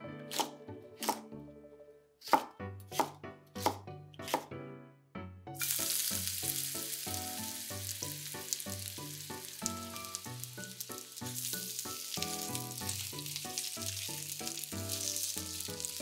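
A knife chopping on a cutting board, a stroke every half second or so, for about the first five seconds. Then food starts sizzling in a hot pan about five and a half seconds in and keeps sizzling steadily, under soft background music.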